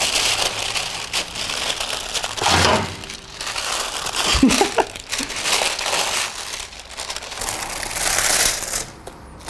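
Paper and plastic crinkling and rustling as gloved hands fold and press a lump of heated recycled plastic wrapped in paper on a baking tray. There is a single knock about four and a half seconds in.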